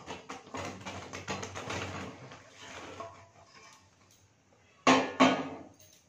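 Soaked, cracked jujubes tipped from a bowl into a steel kadai of hot jaggery syrup: a rapid patter of clicks as the fruit tumbles in over about two and a half seconds. Two loud knocks follow about five seconds in.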